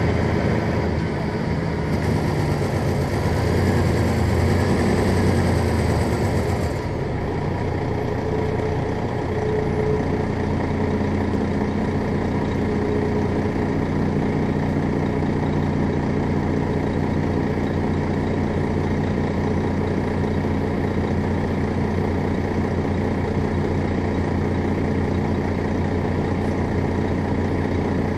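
A 2001 MCI D4000 coach's Detroit Diesel Series 60 inline-six diesel idling steadily. A rushing noise over it stops abruptly about seven seconds in.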